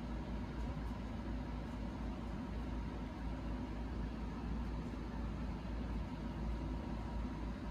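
Steady background hum and hiss with a low rumble, without distinct events.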